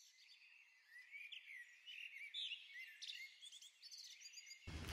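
Faint birdsong: many short, high chirps and trills from several small birds, overlapping. Near the end it gives way to a louder, low steady noise.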